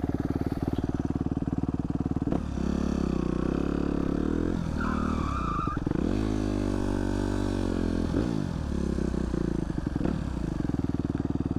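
Supermoto dirt bike engine idling, then revved up and down twice before settling back to a steady idle.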